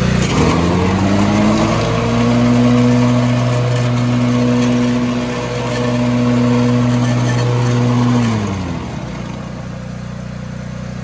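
Exmark 34 mower running with its deck belt and pulleys turning. About a third of a second in, the pitch dips and then climbs over a couple of seconds to a steady higher hum. It holds until near the end, then winds down and leaves a lower, quieter running noise.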